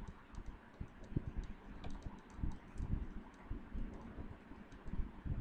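Irregular, light clicking of a computer keyboard and mouse, with a few dull low knocks among the clicks.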